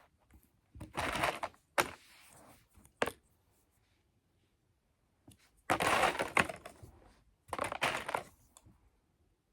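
Plastic straws being pushed into plastic straw connectors: several short noisy bursts of plastic handling, the longest about a second long just past the middle.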